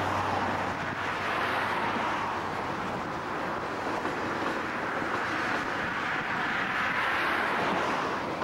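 Freight train cars rolling past on the rails: a steady noise of wheels on track.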